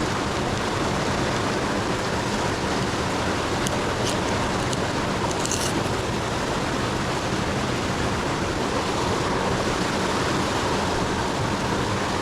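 Steady rush of a flowing river, with a few faint light clicks about four and five and a half seconds in.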